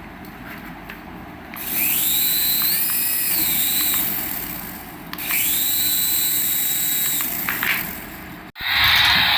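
A toy's small electric motor spins up with a rising whine, holds, then winds down, twice in a row. After a sudden cut near the end, a louder steady whir starts.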